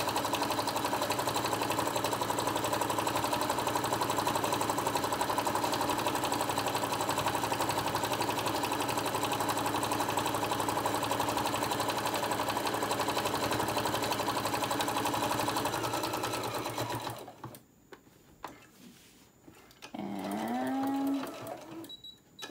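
Singer Modern Quilter electric sewing machine running at a steady speed, stitching around the edge through fabric and thick layers of batting, then stopping abruptly about three-quarters of the way through. A brief wordless voice sound follows near the end.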